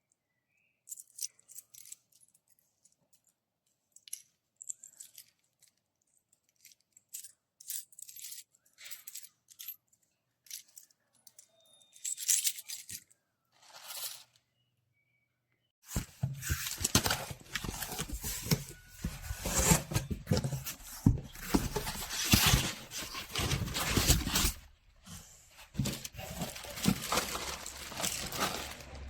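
Scattered light clicks and rustles, then about halfway through a sudden change to dense, continuous rustling and scraping noise.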